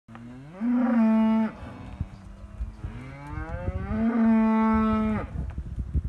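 Shorthorn cattle mooing: two long calls, each rising at the start and then held level, the second longer than the first.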